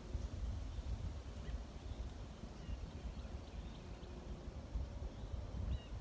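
Outdoor ambience: a low, unsteady rumble under faint, short bird chirps.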